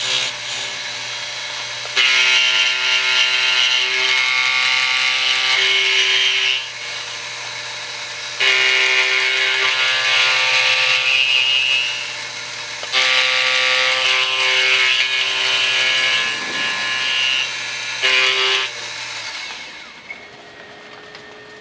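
Excello vertical milling machine cutting metal with an end mill, sped up to four times normal speed: a steady spindle-motor hum with four louder, high-pitched cutting passes of a few seconds each. The motor hum stops near the end.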